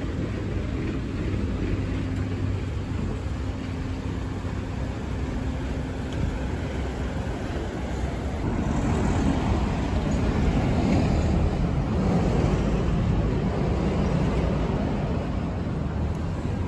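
Road traffic: trucks and cars passing close by on a city road, a steady low engine drone that grows louder in the second half as heavy trucks go past.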